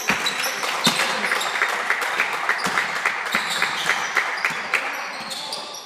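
Clapping and applause from a few people, starting suddenly and tapering off near the end.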